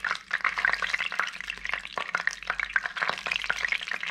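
Hot vegetable oil crackling and spitting in a wok while it is spooned out into a bowl. A dense, steady crackle of fine pops.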